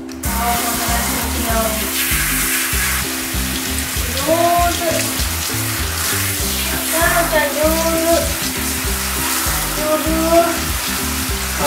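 Hand-held shower head spraying water onto a wet dog's coat: a steady hiss that comes on at the start and runs on evenly.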